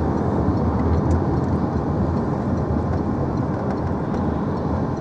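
Steady low running noise of a moving road vehicle heard from inside the cabin: engine and tyre noise while driving.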